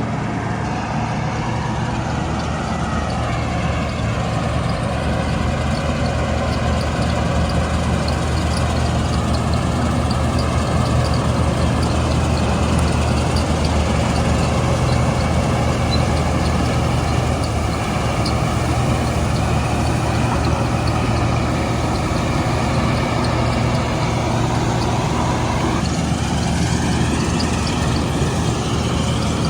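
Combine harvester's diesel engine running steadily, with a slight shift in its pitch near the end.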